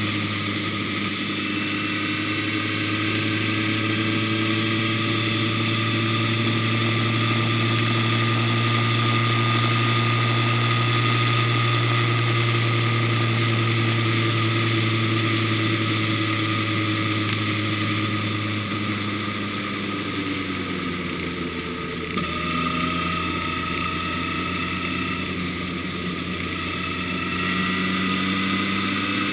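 A motor vehicle's engine running at a steady cruising speed, with road and wind noise on the camera. About twenty seconds in, the engine note drops as the vehicle eases off, then it rises again near the end as it picks up speed.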